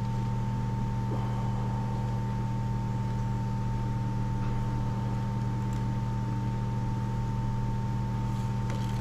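A steady machine hum, even and unchanging, with a low tone and a fainter higher tone, and a few light clicks near the end.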